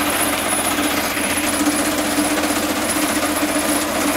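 Motorized cassava grater running steadily while peeled cassava is pushed in and ground into wet mash: a loud, even mechanical grinding noise with a steady hum beneath it.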